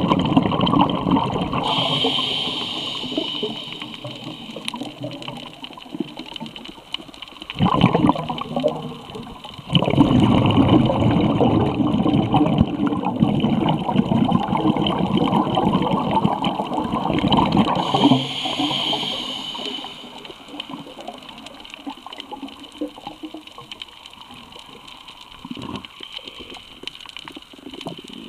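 Muffled underwater water noise: a rumbling rush of bubbling water that swells and fades, broken twice by a brief high hiss.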